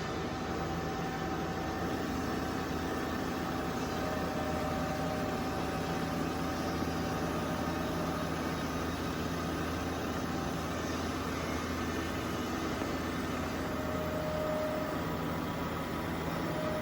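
Two-spindle CNC wood lathe running, a steady machine hum with several held whining tones that come and go.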